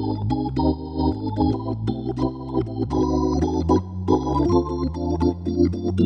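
Nord C2 organ playing jazz with a Hammond B3 drawbar tone: held chords and melody over a bass line that changes notes about twice a second, with short key clicks at the note starts.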